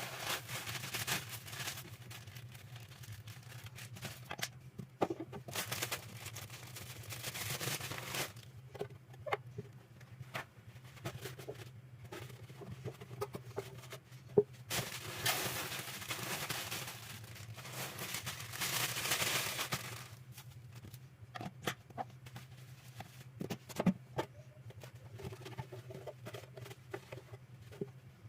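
Household handling sounds: a few stretches of rustling or pouring noise lasting a few seconds each, with scattered clicks and knocks, over a steady low hum.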